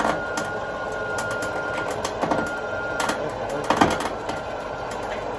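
Electric winch motor running with a steady whine as it pulls the car, the whine easing off about three seconds in, with a few sharp knocks and clanks along the way.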